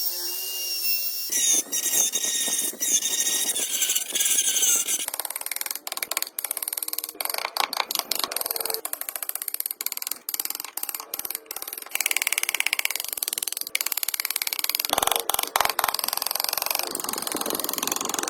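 Small power tools grinding and sanding wood, in a run of short clips that change abruptly every few seconds.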